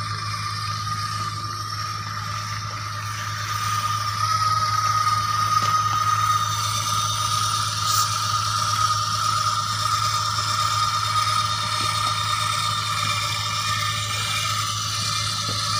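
Automatic geomembrane welding machine running with a steady whine as it crawls along and welds the overlap of two 1 mm geomembrane liner sheets, with the sheet scraping under it. It gets a little louder about four seconds in.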